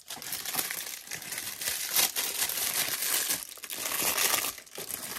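White wrapping paper crumpling and crinkling in the hands, with a couple of short lulls.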